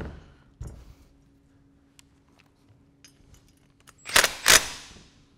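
Cordless impact driver hammering in two short bursts about four seconds in, tightening the base bolts of a Schmidt TeraValve. Before that, a soft knock and faint clicks of the valve and tool being handled.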